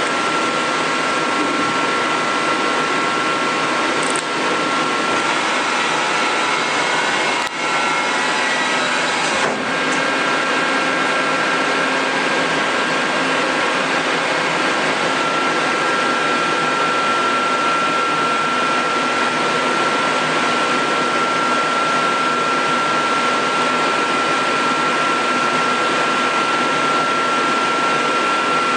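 Amera Seiki T415 CNC lathe running: a steady machine whir with a high steady whine. There are a few short clicks in the first ten seconds.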